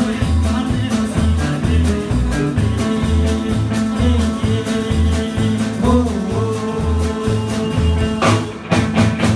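Live rockabilly band playing: upright double bass on a steady bass line, electric guitars and drums, with a man singing. Near the end the band stops briefly and lands two loud hits.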